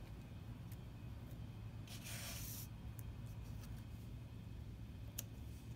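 Faint handling of a foam stamp on construction paper: one short rubbing hiss about two seconds in as the stamp is pressed and rubbed down, and a few light taps, over a low steady hum.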